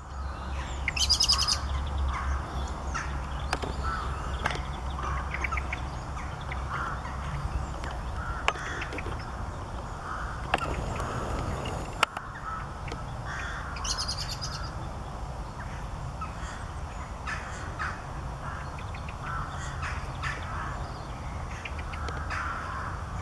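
Small birds calling: scattered short chirps, with two brief rapid high trills, one about a second in and one around fourteen seconds, over a steady low rumble.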